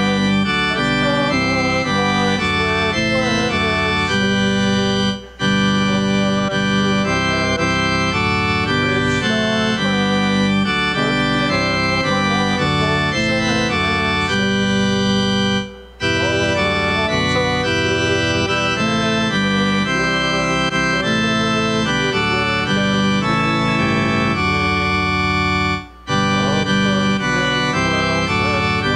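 Church organ playing a hymn in sustained chords, breaking off briefly between phrases three times.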